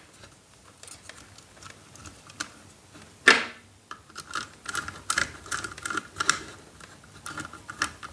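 Small screwdriver tightening the terminal screw of a plastic-bodied two-pole isolator to clamp a wire: scattered small clicks and scrapes, a sharper knock about three seconds in, then a quicker run of clicks through the second half.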